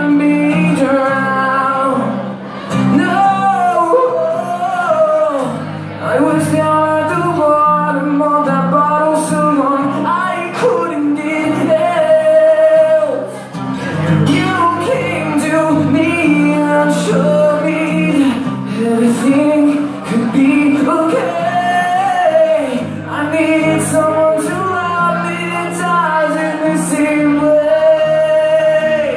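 Live band playing in a club, heard from within the audience: sung vocals with long held notes over steady guitar chords, with occasional cymbal-like hits.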